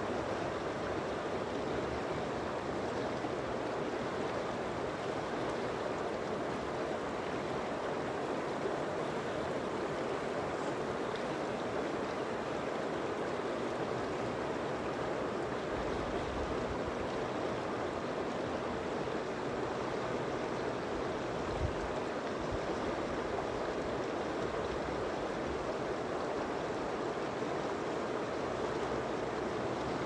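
Shallow river running over and around rounded rocks, a steady rushing and burbling of flowing water.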